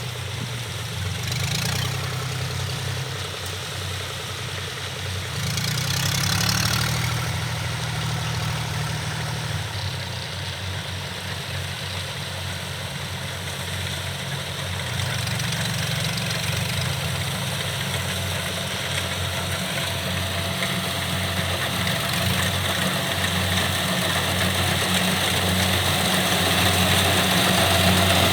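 Diesel engine of a Kubota rice combine harvester running steadily as it works, getting louder over the second half.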